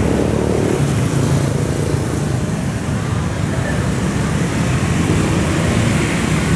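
Steady road traffic noise, an even rumble with no distinct events.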